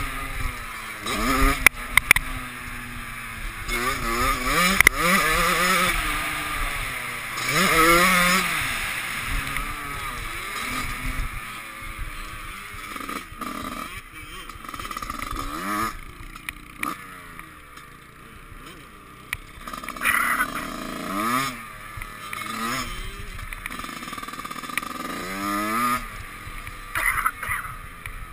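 Dirt bike engine revving hard and backing off again and again as it rides round a track, its pitch rising and falling in repeated sweeps, with wind noise and knocks on the helmet-mounted camera.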